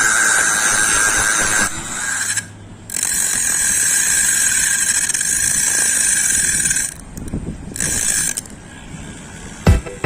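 Small electric motor of a homemade drill/angle-grinder machine running with a high whine, stopping and restarting in bursts: on for under two seconds, on again for about four seconds, then once more briefly. A few sharp clicks near the end.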